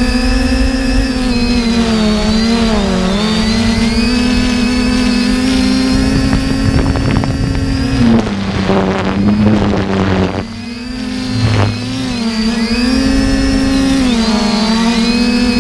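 Quadcopter drone's electric motors and propellers buzzing steadily, the pitch wavering up and down as the throttle is adjusted. About halfway through, a rush of wind noise swells and the buzz briefly drops, then steadies again.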